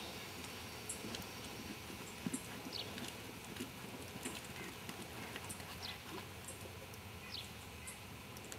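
Soft hoofbeats of a half-Arab horse trotting on a sand arena, with short high chirps every second or two.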